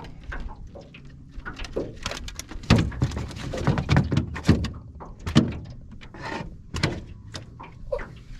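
Irregular knocks, thumps and clatter of a crappie being handled and laid out for measuring in a boat, with the loudest knocks in the middle.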